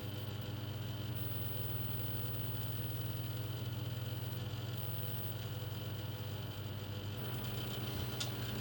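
Steady low hum of running electronics-bench equipment, even throughout, with a faint click near the end.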